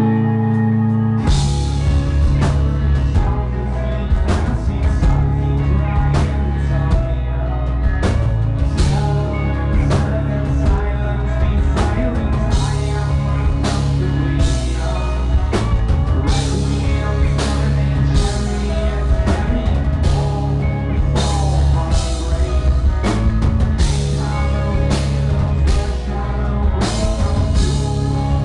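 Live rock band playing a song at full volume. A held chord rings for about the first second, then drums, bass and guitars come in together with a steady beat, under a man singing lead vocals.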